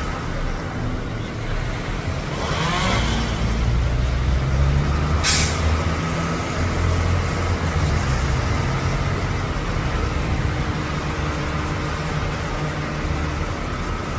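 A heavy vehicle's engine running with a steady low rumble that swells briefly about three seconds in, and one short sharp hiss about five seconds in.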